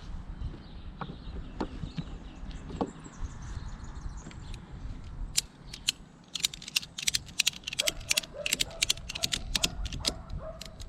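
Ratchet strap being cranked to tighten it: a few faint knocks, then from about five seconds in the ratchet's pawl clicks in quick runs of sharp clicks that come thick and fast over the last few seconds.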